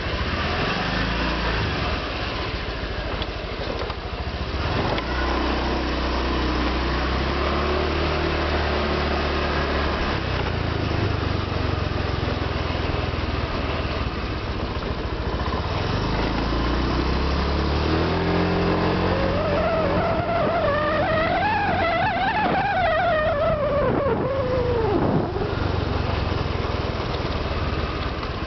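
Honda Vario 125 PGM-FI automatic scooter's single-cylinder engine running while riding, fitted with a larger-diameter stainless-steel muffler neck. The engine note climbs in pitch about two-thirds of the way in, then drops away sharply near the end as the scooter slows.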